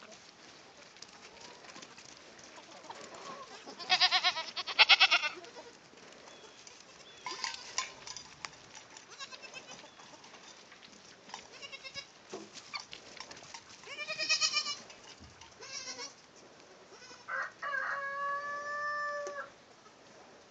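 Goats bleating, a handful of separate wavering calls, the loudest pair about four seconds in, with a longer, steady held call near the end.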